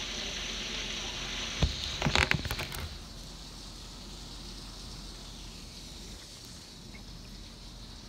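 Heavy rain pouring down, a steady hiss, with a thump and a few knocks about two seconds in. About three seconds in the rain turns fainter and more muffled.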